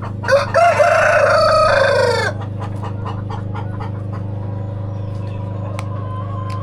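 A rooster crows once, a loud call of about two seconds starting just after the beginning. Under it runs a steady low hum, with faint short chicken calls scattered through the rest.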